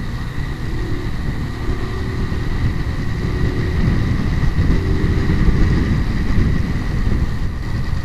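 Kawasaki Rouser 180 single-cylinder motorcycle engine running under way, with heavy wind noise on the microphone, getting louder through the middle.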